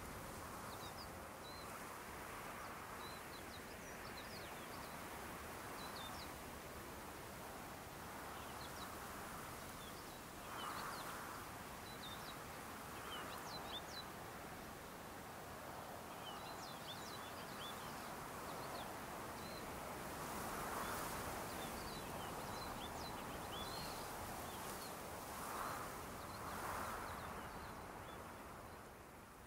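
Small birds giving many short, high chirps throughout, over a steady rush of wind that swells a few times.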